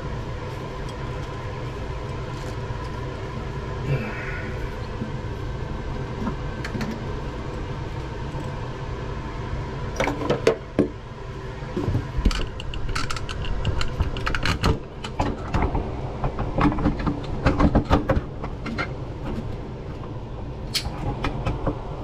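Steady low hum, with sharp metallic clinks and knocks from about ten seconds in: hand tools and pipe fittings being worked during a water heater hookup.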